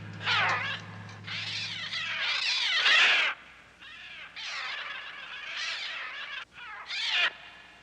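A flock of birds shrieking: many harsh, overlapping cries that rise and fall in pitch and swell to their loudest about three seconds in.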